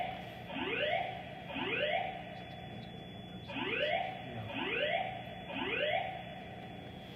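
Building fire alarm voice-evacuation system sounding its alert tone: rising whoop sweeps about one a second, in groups of three with a short pause between groups.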